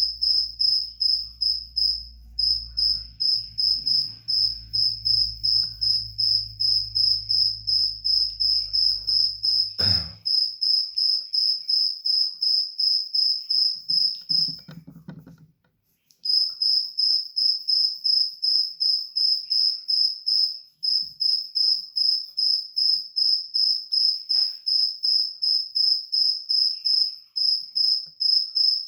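Cricket chirping in a steady run of rapid, evenly spaced high-pitched pulses, breaking off for a moment about halfway through and then resuming. Under it a low hum runs through the first third and ends with a knock.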